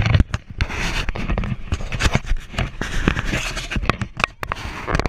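Camera handling noise: irregular rubbing, scraping and knocks on the microphone as the action camera is jostled and swung about.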